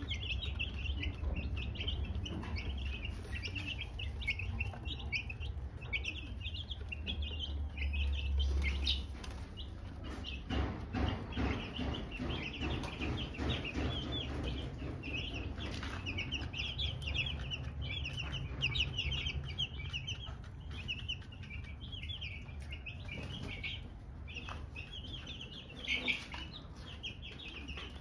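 A brood of young chicks peeping continuously, many short high cheeps overlapping with hardly a break. A low rumble and some scratchy rustling sit underneath.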